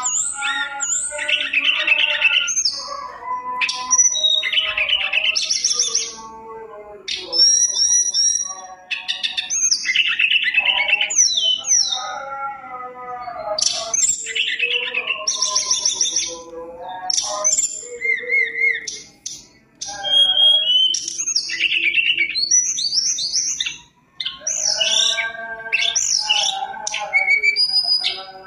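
Tledekan gunung singing a loud, varied song of whistles, trills and chirps in quick phrases, with brief pauses about six, nineteen and twenty-four seconds in. Its song is rich in mimicked 'isian' phrases of other birds.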